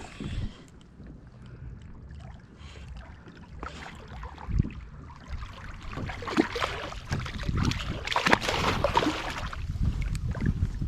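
Wind buffeting the microphone on a kayak, with a low rumble throughout. In the second half there is a louder stretch of dense crackling and rustling noise.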